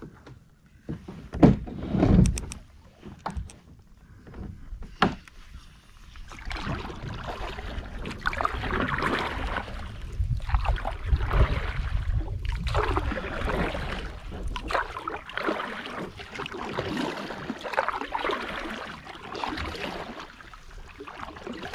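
Kayak handling: a few knocks and thumps of the double-bladed paddle against the kayak in the first few seconds, then steady paddle strokes, with water swishing about every two seconds.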